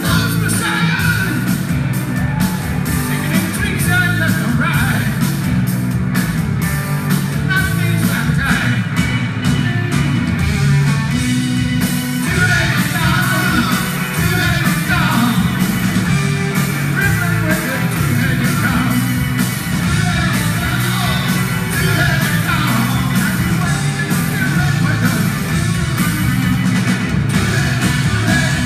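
Rock band playing live and loud: electric guitars, drums and keyboard with a lead vocal singing over them.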